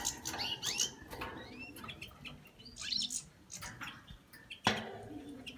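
European goldfinches twittering: quick chirps and short rising call notes. A single sharp knock comes about a second before the end.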